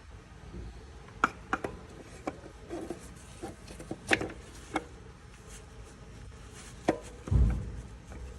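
Hand tools and metal parts being handled during a clutch and flywheel job: a scattered series of sharp clicks and knocks, then a heavier low thud about seven seconds in.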